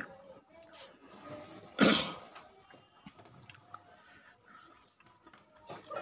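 Cricket chirping steadily in a rapid, high pulsing trill. About two seconds in comes a brief rustle of khaki shirt cloth being turned over and smoothed by hand, followed by faint handling sounds.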